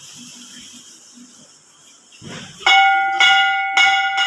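Temple bell struck three times about half a second apart, each strike ringing on with a clear, lingering tone, after a brief rustle.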